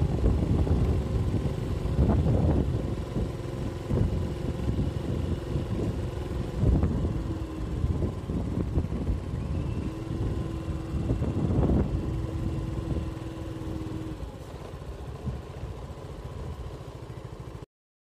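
Motorcycle engine running at low speed, with wind rumbling on the microphone. It grows quieter toward the end and cuts off suddenly.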